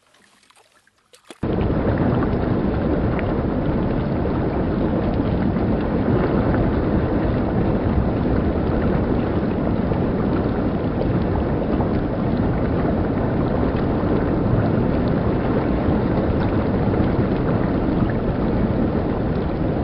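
Near silence for about a second and a half, then the steady rushing of a fast-flowing stream tumbling over rocks, which starts suddenly and stays even throughout.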